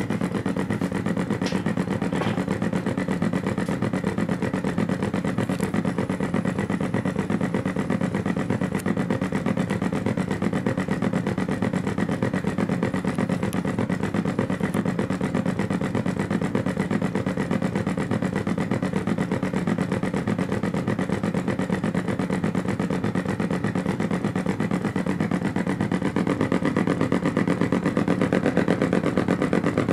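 Artificial engine sound synthesized with function generators in sweep mode and played through a small bookshelf speaker: a fast, even low pulsing like an engine running. It stays steady and gets slightly louder near the end.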